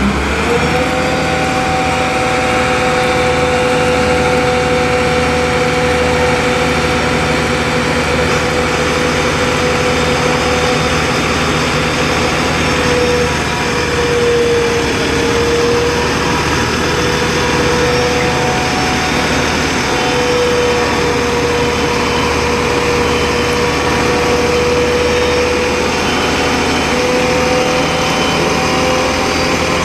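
Turntable ladder truck's engine running at raised revs to power the ladder hydraulics as the ladder raises and extends, with a steady whine that dips briefly in pitch about halfway through.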